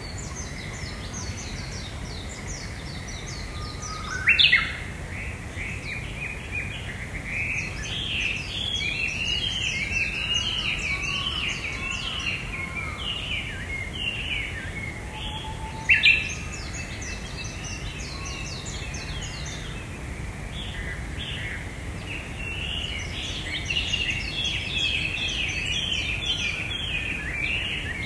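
Several songbirds singing together in forest, with overlapping trills and chirps. Two louder, sharp rising calls stand out, about four seconds in and again about halfway through. A low, steady background noise runs underneath.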